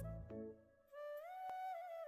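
Background music: a slow, held melody line that steps up in pitch about a second in, over low sustained notes.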